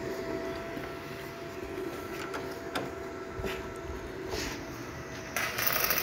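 Steady background hum with a few sharp ticks, then about five seconds in the loud crackle and hiss of a stick-welding arc as a welder starts a weld on the steel door frame.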